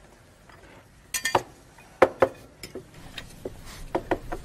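Cutlery and serving spoons clinking and knocking against china plates and bowls as dishes are served and passed around a dinner table: about ten short clinks, a quick cluster about a second in, then more spaced out.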